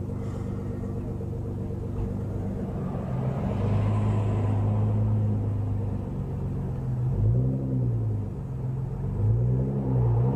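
Car engine idling, then running steadily at higher revs from about three seconds in, with two short rev blips that rise and fall in pitch near the end.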